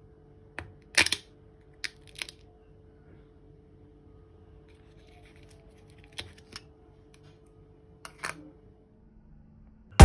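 Plastic packaging of a Magnum ice cream pint being handled and pressed open: a few short sharp clicks and crackles, the loudest about a second in, with more pairs near the middle and toward the end, over a faint steady hum.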